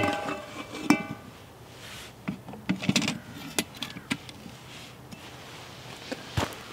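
Metal cooking-pot lid and handle clanking and clinking as the pot is covered, lifted and hung back over the campfire: a scatter of separate knocks and clinks, with one ringing clang about a second in.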